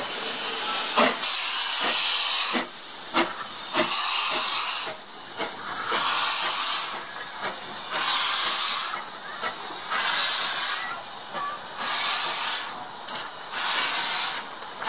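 Small steam tank locomotive moving off slowly, steam hissing out low by the cylinders in repeated bursts about every two seconds. A few sharp metallic clanks come in the first few seconds.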